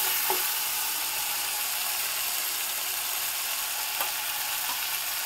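Water-mixed spice paste sizzling steadily in hot oil in a wok as the masala is fried down, with a couple of faint clicks of the spatula against the pan.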